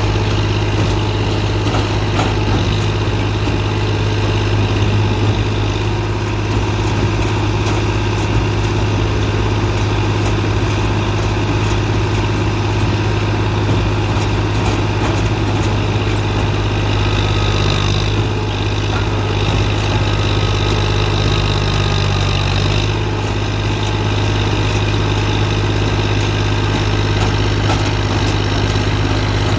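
Straw and husk baling press machine running with a steady, even hum. Its tone shifts slightly for a few seconds about two-thirds of the way through.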